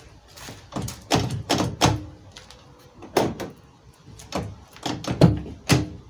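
Volvo 240's central door locks clunking as the key turns the newly fitted lock cylinder back and forth, locking and unlocking the car. There are about ten sharp clunks, several in quick pairs, a sign that the central locking now works from the door barrel.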